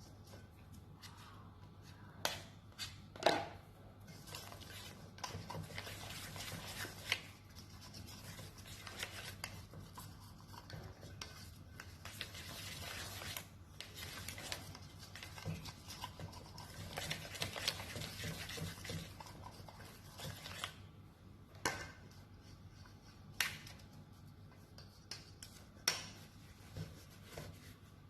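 Hand utensil working in a mixing bowl of cake batter: stretches of brushing, scraping strokes, broken by sharp clinks against the bowl, the loudest about three seconds in and a few more near the end.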